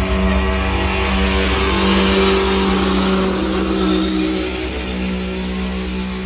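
Freight train cars rolling slowly past on the rails, with wheel-on-rail noise and a steady low droning hum from the moving train.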